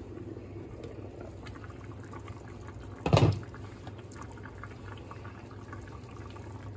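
Seafood stew boiling in a pot, with a steady low hum and light crackling pops of bubbles. About three seconds in, a short loud clunk as the pot's glass lid is lifted off.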